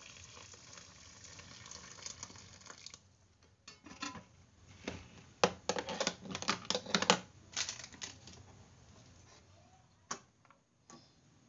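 Water poured from a pot into a rice cooker's inner pan of rice, a steady splashing pour for about three seconds. In the middle comes a quick run of sharp plastic clicks and knocks as a plastic rice paddle is handled against the rice cooker, with one more click near the end.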